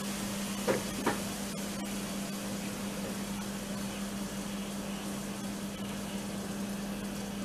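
Water in a hot non-stick appam skillet sizzling with a steady hiss, with a couple of short spits about a second in; the sizzle shows the skillet is hot enough to take the batter.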